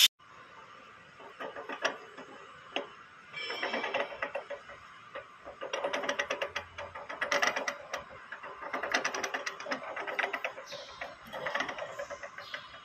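Steel spur gear and pinion of a crane drive being turned, the teeth clicking and rattling irregularly in clusters of quick metallic ticks.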